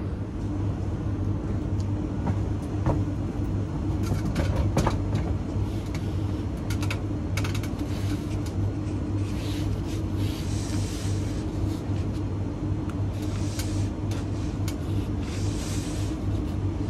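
Steady low mechanical hum of rooftop machinery, a fan or motor running, with a few sharp clicks in the first few seconds. In the second half there are several short rustles and scrapes from a long white insulated refrigerant pipe being handled against the wall.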